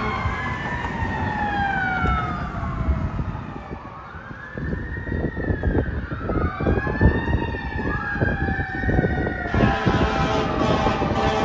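Fire engine siren wailing, its pitch rising and falling about every two seconds. From about two-thirds of the way in, the truck's air horn blasts over it as a steady tone.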